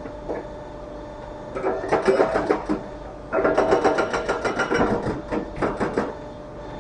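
Hydraulic rock breaker hammer on a fixed pedestal boom, with a steady hum under it and two bursts of rapid rattling blows. The first burst comes about two seconds in and lasts about a second. The longer second burst stops shortly before the end.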